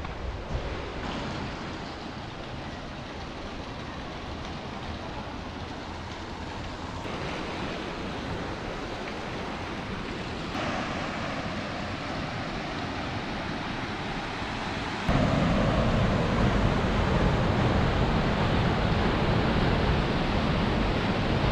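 Soča river water rushing through a narrow rock gorge, a steady even rush that suddenly jumps louder about fifteen seconds in.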